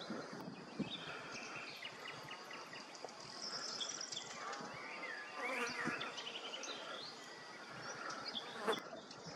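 Outdoor countryside ambience: small birds chirping and trilling, with insects buzzing and a faint steady high insect tone.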